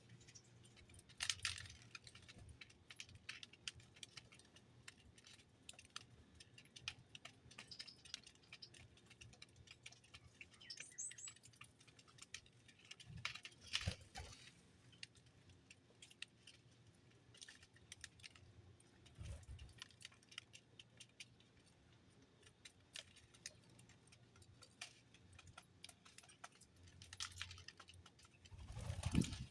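Small birds pecking and shelling seed at a feeder: a steady scatter of light clicks and taps, with a few louder knocks and one brief high chirp partway through.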